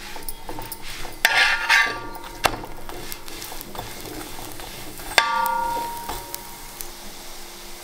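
A metal spatula scrapes and taps on a hot iron griddle as an oiled parotta is turned and pressed, over a light sizzle of frying oil. About five seconds in, one sharp metallic clang rings and fades over about a second.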